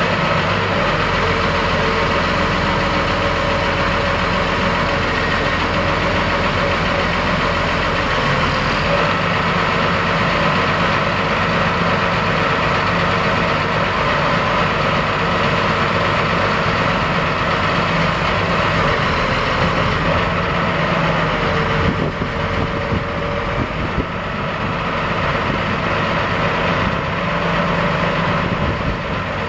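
Case 1085B excavator's Cummins 938 six-cylinder diesel running steadily while the boom and bucket are worked, its note shifting a few times, with a short dip about two-thirds of the way through.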